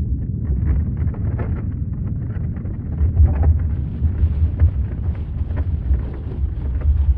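Earthquake rumble: a deep, continuous rumble with many short crackles and rattles over it, growing louder about three seconds in.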